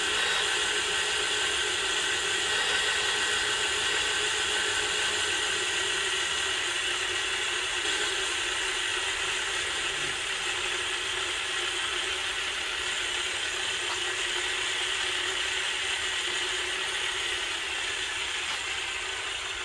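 Cylinder boring bar running steadily with an even whir as it cuts the counterbore step for a sleeve in an aluminium jet-ski cylinder.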